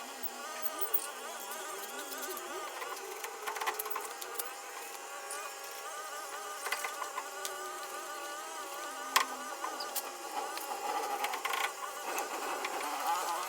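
Budgerigars chattering and warbling continuously, many overlapping wavering calls, with a sharp click about nine seconds in.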